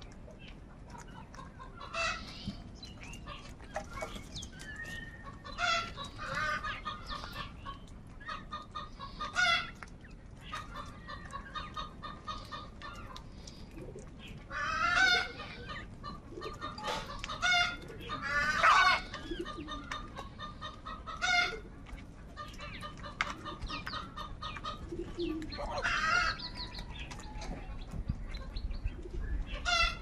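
A flock of house crows cawing: harsh calls come singly and in overlapping bursts, a dozen or so spread through, loudest in a cluster around the middle.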